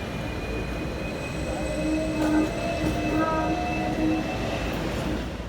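Hong Kong double-decker tram rumbling along its rails, with its steel wheels squealing for a few seconds in the middle as it rounds a tight curve.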